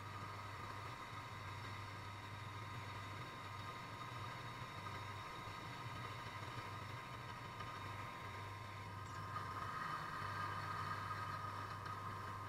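Drill press motor running steadily with its bit drilling into an aluminium router insert plate; the cutting grows louder, with more hiss, toward the end.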